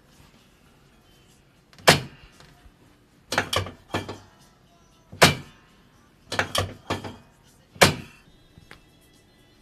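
A series of sharp knocks during a chiropractic adjustment of a patient lying on a treatment table, about nine in all: single strikes about two, five and eight seconds in, with quick groups of two or three between them.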